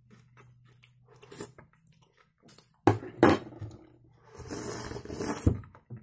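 Small spoon clicks and chewing, then two sharp knocks about three seconds in. These are followed by a long, noisy slurp of thick kharcho soup with rice, drunk straight from the rim of a glass bowl and lasting about a second.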